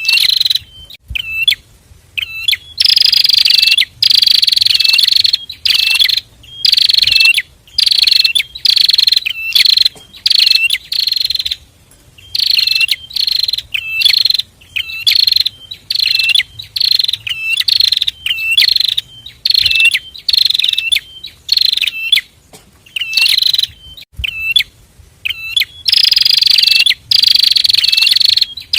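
A pair of prinias (prenjak) singing vigorously: loud, high, buzzy phrases repeated about once a second, with short clipped call notes between them.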